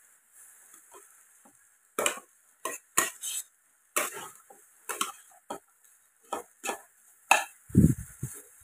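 Spatula scraping and knocking against a non-stick pan as spiced black chickpeas are stirred: short strokes about every half second, starting about two seconds in. Near the end there is a single heavier, low thump.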